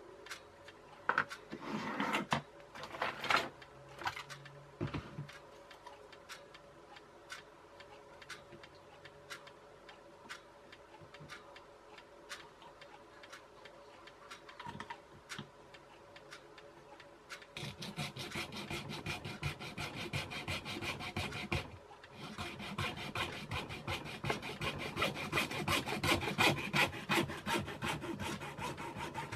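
A junior hacksaw cuts through the end of a plastic toothbrush handle in rapid back-and-forth strokes. The sawing starts about two-thirds of the way in and pauses briefly a few seconds later. Before it come a few clicks and knocks of the parts being handled.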